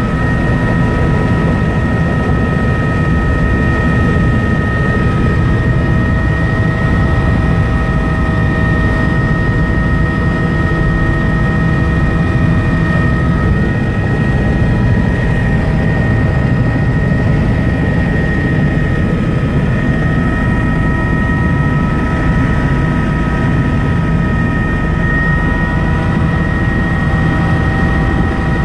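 Tour helicopter's turbine engine and rotor running steadily, heard from inside the cabin: a loud steady drone with a high whine over it. The whine rises slightly in pitch near the end.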